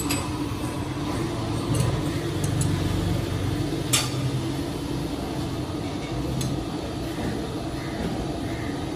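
Steel tools clinking against a crankshaft clamped in a lathe chuck during setup, with one sharp metallic click about four seconds in, over a steady machine hum.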